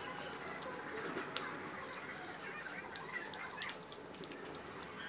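Faint scattered clicks and small rustles from fingers peeling and picking at food and from eating, with one sharper click about a second and a half in.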